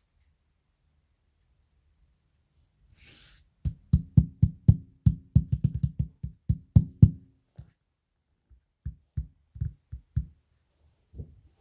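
Hollow, drum-like knocking with a short low ring, as from tapping on an opened loudspeaker. A quick run of about fifteen knocks comes first, then a pause and a few slower knocks.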